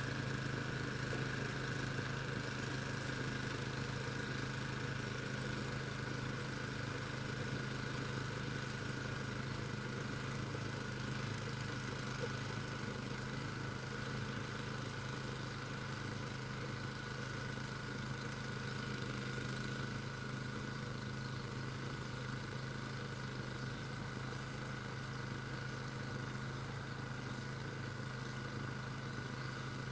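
Engine of a snow-clearing machine running steadily at an even speed, with a thin steady whine above its low hum.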